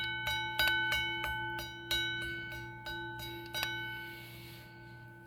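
Metal alarm bell gong struck by hand about ten times at an uneven pace, each strike renewing a bright ringing with several overtones, then the ring slowly dies away near the end.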